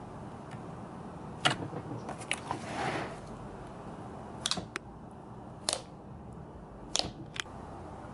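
Jelly slime being stretched and squeezed by hand in a plastic tub, giving about seven sharp pops and clicks, with a short squelching rush about three seconds in.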